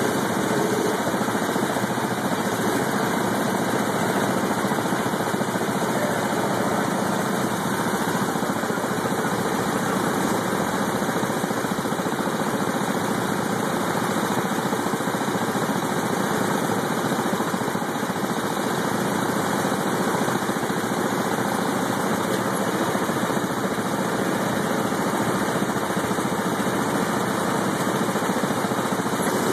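Go-kart engines running steadily, a dense mechanical noise with no let-up.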